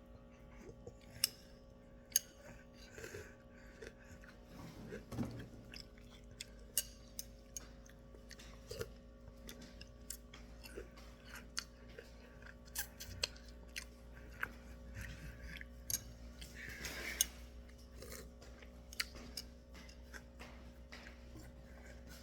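A person chewing crunchy Lucky Charms cereal, faintly, with scattered sharp clicks throughout and a faint steady hum underneath.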